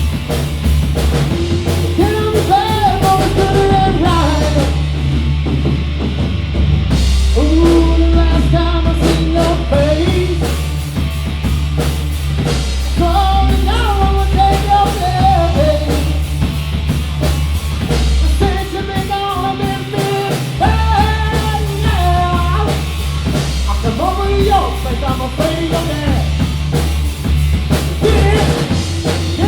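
Rock band playing a song at full volume, with drum kit, a steady bass line and a melodic lead line over the top.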